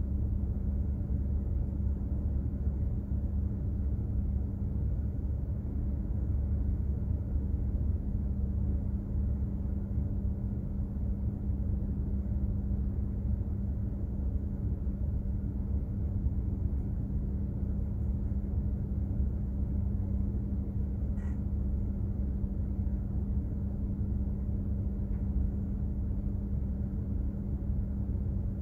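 Steady low drone and hum of a container ship's engine and machinery while underway, with no change in speed or load. A brief faint high squeak about three-quarters of the way through.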